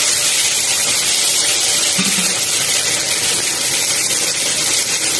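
Marinated chicken pieces sizzling loudly in hot oil in a wok over a high flame, a steady hiss just after the chicken goes in.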